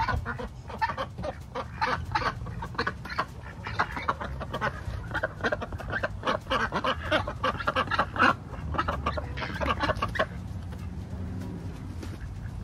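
Ducks and chickens calling in a rapid, dense run of short quacks and clucks that thins out about ten seconds in, over a low steady rumble.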